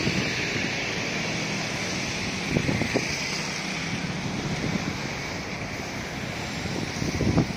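Steady city-street traffic noise from cars driving past, mixed with wind buffeting the microphone, with a few soft knocks about three seconds in and again near the end.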